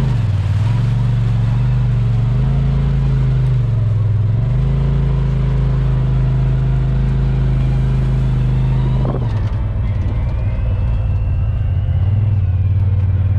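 Polaris RZR Pro XP side-by-side's turbocharged twin-cylinder engine running under way, its pitch rising and falling several times with the throttle and dipping briefly about nine seconds in.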